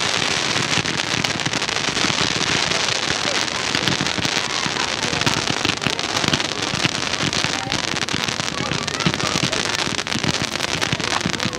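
Low-noise display fireworks fired from the ground, hissing and crackling steadily with a dense patter of small pops and no big bangs.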